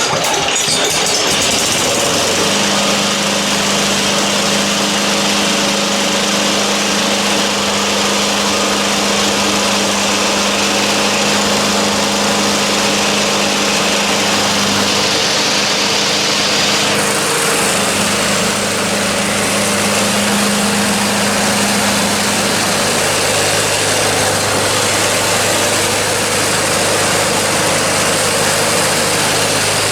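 A 3.5 hp Briggs & Stratton single-cylinder engine on a vintage Snapper walk-behind mower catches at the start and runs steadily at its self-governed speed, with no throttle linkage hooked up. Its pitch drops a little about two-thirds of the way through.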